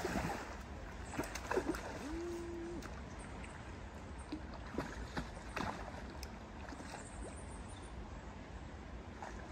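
A large fish thrashing and splashing at the river's surface close to the bank: one loud splash at the start, then a few smaller splashes and water slaps, over the steady wash of the river current.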